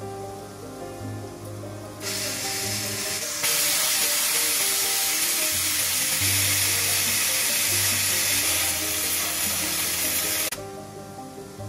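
A gas burner flame hisses loudly as it heats the bottom of a glass cup to reinforce it. The hiss comes in about two seconds in, grows louder a second later, and cuts off abruptly near the end, over background music.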